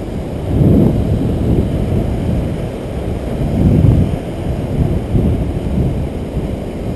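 Wind buffeting an action camera's microphone: a loud, low rumble that swells in gusts, strongest about a second in and again around four seconds.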